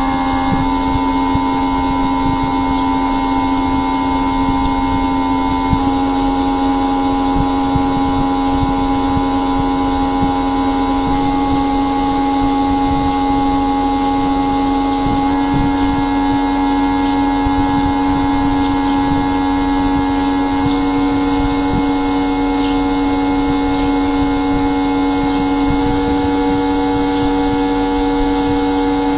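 Steady electrical or machine hum made of several held tones, with a few of the higher tones stepping slightly in pitch every five seconds or so.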